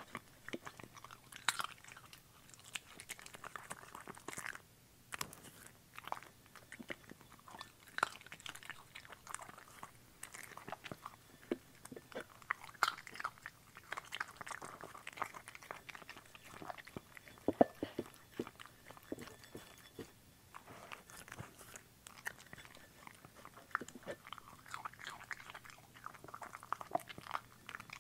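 Bichon Frise dog chewing and biting its food from a ceramic bowl. It is an irregular run of sharp chewing clicks with brief pauses.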